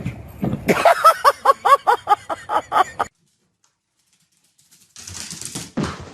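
An animal giving a quick run of about ten short, high calls, roughly four a second, that cut off abruptly; after a pause comes a rustling noise with a thump near the end.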